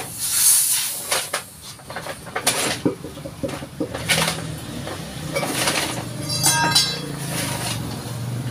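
Irregular metal clinks and taps of a wrench working the cap onto a motorcycle front fork tube as the fork is reassembled.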